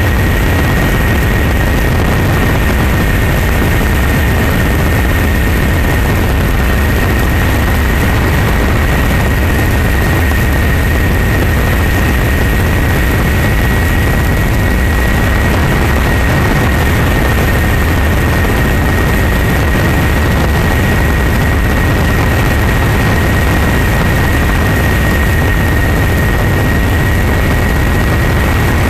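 Helicopter in flight: steady, loud engine and rotor noise with a low rumble and a constant high whine.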